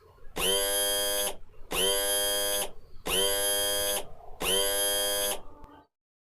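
Synthetic electronic buzzer tone from a Terminator-style HUD sound effect, pulsing in four long beeps a little over a second apart, each just under a second long, then cutting off.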